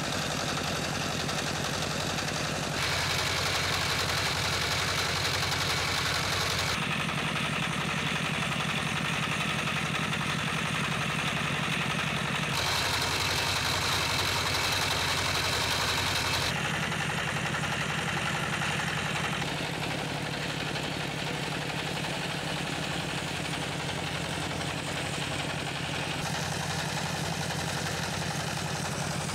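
Converted tractor engine running steadily under load, driving a puffed-corn extruder. Its tone changes abruptly several times.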